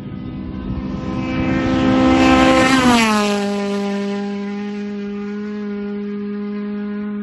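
Race car engine at high revs passing at speed, getting louder on the approach and then dropping sharply in pitch as it goes by about three seconds in, holding a steady note as it pulls away.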